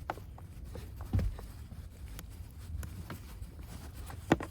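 Scattered small clicks and taps of Torx screws being tightened by hand into a plastic cover, with a thud about a second in and a sharper knock near the end, over a low steady rumble.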